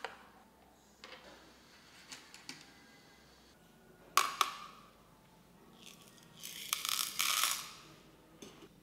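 Two sharp clicks of a small plastic tub knocking on a digital scale's steel platform. A couple of seconds later comes about a second of dense rattling as small pieces of metal, gold chunks and alloy granules, are tipped into the tub.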